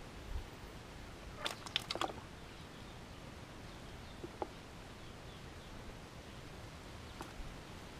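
Quiet background with a few short wet clicks and splashes from hands groping in mud and water inside a bucket: a quick cluster about a second and a half in, then single ones later.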